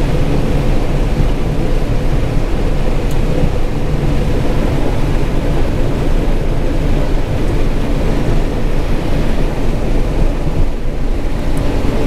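John Deere 9400 combine harvesting corn, heard from inside the cab: a loud, steady drone of engine and threshing machinery.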